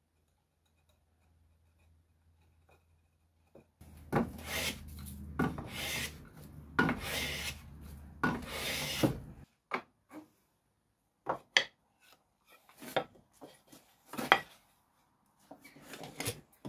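Hand plane shaving a teak stop in about five long scraping strokes, starting about four seconds in; after the planing stops, a few light clicks and knocks as the wood and tools are handled.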